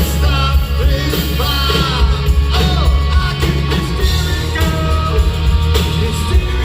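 Live rock and roll band playing, with a singer's voice over loud drums, bass and guitar.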